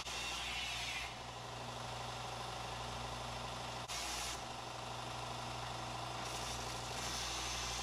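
Steady low machine hum with a hiss over it that comes and goes: strong at first, easing after about a second, a short burst about four seconds in, and louder again near the end.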